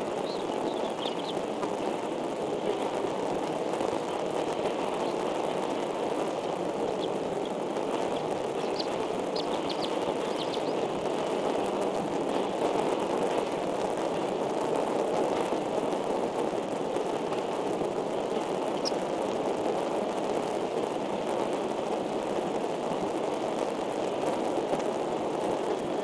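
Steady, even rushing noise, with a few faint short high chirps scattered through it, several in the first half and one later.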